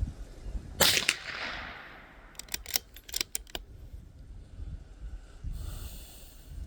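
.22 LR bolt-action rifle firing once about a second in, a sharp crack with a short ringing tail. It is followed by a quick run of about six clicks as the bolt is worked, and a brief hiss near the end.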